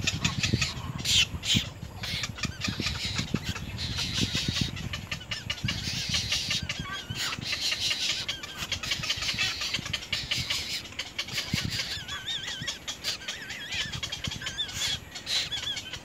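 Egret chicks begging at the nest: high, rapid chattering calls mixed with many sharp clicks as they grab at the parent's bill to be fed, turning into wavering calls in the last few seconds.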